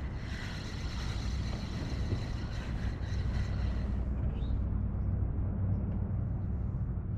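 Wind buffeting the microphone on open water, a steady low rumble; the higher hiss drops away about four seconds in.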